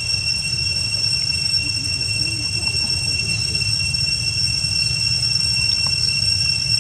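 Steady high-pitched drone of cicadas, two unbroken tones held throughout, over a low rumble.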